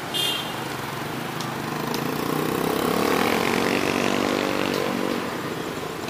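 A motorcycle engine passes close by, growing louder to a peak about three seconds in and then fading, over steady street traffic. A brief sharp high-pitched sound comes right at the start.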